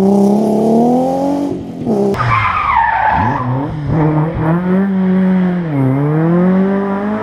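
Rally car engine pulling hard, its pitch rising and falling with the throttle and gear changes. The tyres squeal for about a second and a half around two seconds in, and the engine note dips and climbs again near the end.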